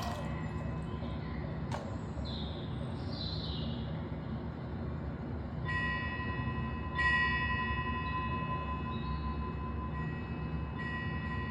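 A small metal bell ringing three times, struck about 6 s in, more loudly about a second later and again near the end, ringing on after each strike, over a steady low ambient rumble.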